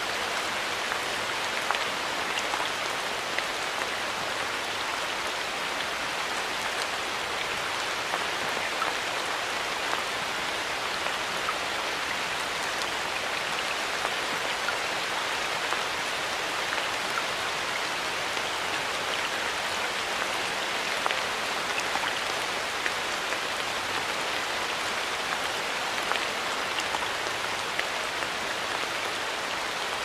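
Steady rain falling in a forest: an even hiss with individual drops ticking sharply here and there.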